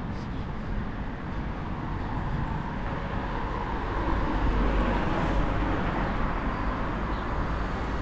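Road traffic on a street: steady noise of passing cars, with one car driving by close and swelling louder around the middle before fading.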